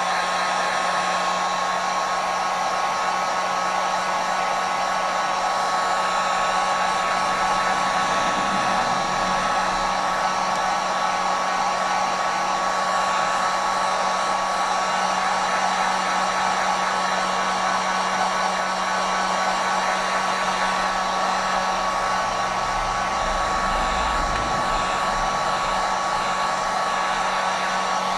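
Heat gun running steadily, a constant fan whine over a rush of hot air, heating the corners of a phone's digitizer so it can be taken off.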